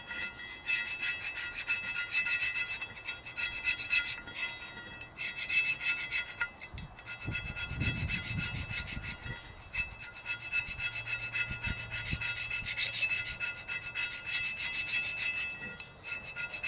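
Sharpened steel putty knife scraping old gasket off a semi truck's axle shaft flange, in rapid repeated strokes with a high squeal from the blade edge.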